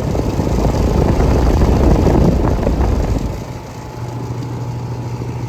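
American Standard central air conditioner's outdoor unit running: a steady low hum from its reciprocating compressor under a louder rushing noise that drops off about three seconds in.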